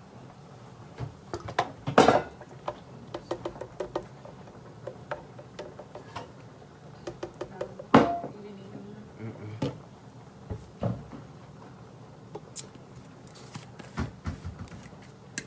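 Kitchen handling clatter: a scattered run of clicks and knocks as a measuring cup and an oil bottle are handled over a plastic blender jar. The two loudest knocks come about two seconds in and again about eight seconds in.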